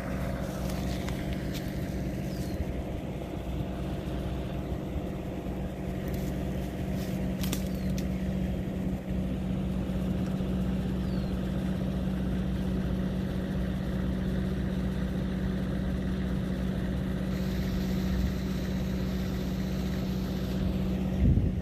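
An engine idling steadily: a constant low hum that holds one pitch throughout.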